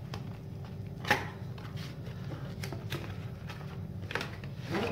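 Cardboard box being opened by hand, its flaps pulled and torn: a string of light clicks and rustles, with the sharpest snap about a second in.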